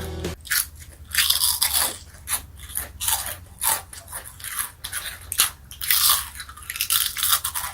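Spicy tomato Munchos chips being bitten and chewed close to the microphone: many irregular, crisp crunches.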